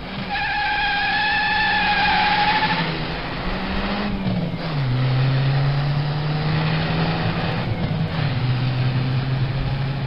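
Car tyres squealing in a high, slightly wavering screech for about three seconds as the car accelerates hard out of a turn, over the engine revving. The engine note climbs and then drops about five and eight seconds in as the transmission shifts up.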